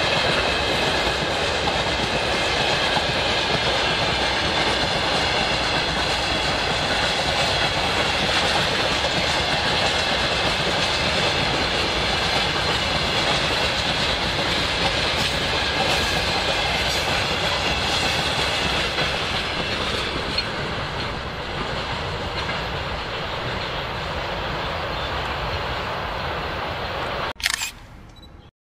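Train rolling past close by, its wheels clattering over the rail joints in a steady loud rush, with thin high ringing tones over it through the first half. It cuts off suddenly near the end with a short burst of noise.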